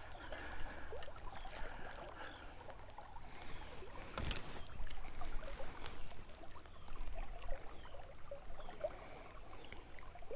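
Quiet water trickling and lapping around a boat, with scattered small taps and one louder knock about four seconds in.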